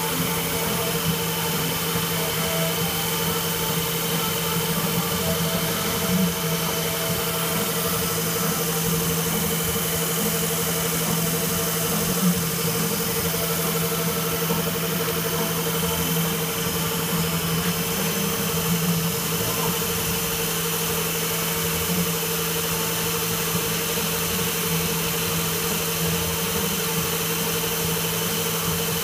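Tool post grinder with a GMN high-speed spindle running on a lathe, its wheel grinding a W20 holder as the lathe turns it: a steady mechanical hum and whine over an even high hiss.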